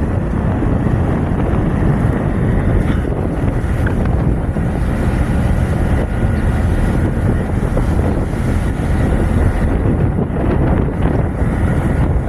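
Strong wind buffeting the microphone over the steady sound of a tugboat's engines running and the sea rushing past the hull.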